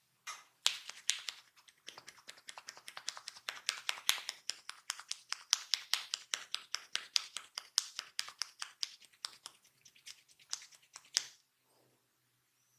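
Rapid percussive massage strokes: hands striking the body in a quick, even series of sharp slaps, about six a second, that stops near the end.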